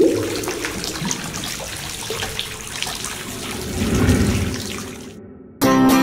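Water sloshing and splashing, starting suddenly, swelling about two-thirds of the way through, then fading away. Plucked-string folk music with a steady beat starts just before the end.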